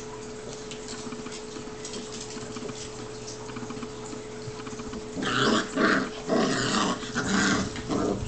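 Seven-week-old Newfoundland puppies growling at each other as they play-fight, in about five loud bursts starting about five seconds in.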